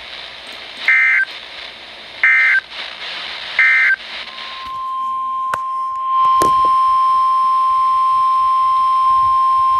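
Three short Emergency Alert System data bursts, the end-of-message code over radio hiss. About four seconds in, the single steady NOAA Weather Radio warning alarm tone begins and runs on.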